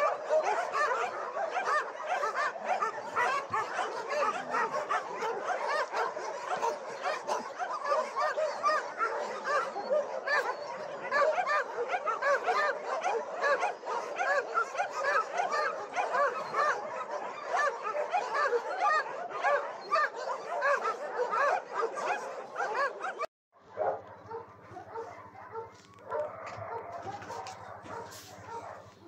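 A litter of kittens mewing nonstop, many small high cries overlapping. It cuts off abruptly about 23 seconds in, leaving a quieter steady hum with a few fainter mews.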